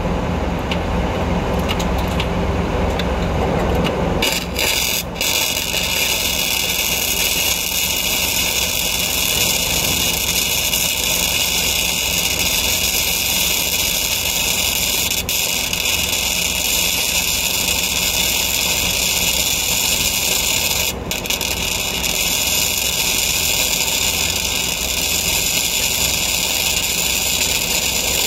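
Flux-core wire-feed welding arc on a steel gusset plate: it strikes suddenly about four seconds in and then runs with a steady, even hiss and crackle. It stops for a moment about 21 seconds in and restarts. A low steady engine hum runs underneath throughout.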